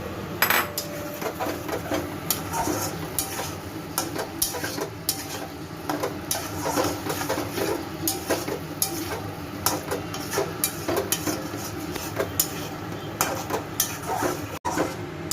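A cooking utensil knocking and scraping irregularly against a pan while paneer and potatoes are stirred and fried in a tomato masala (the kosha step), with one sharper knock about half a second in.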